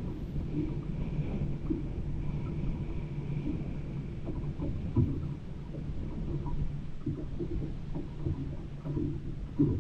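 Low, steady engine-like rumble with a few scattered knocks; the loudest knock comes about halfway through.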